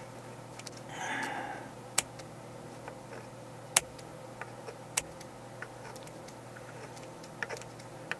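Scissors snipping a cork sheet around a clamped wooden template: a brief rustle about a second in, then a series of sharp snips, the loudest about two, four and five seconds in, with fainter ticks between.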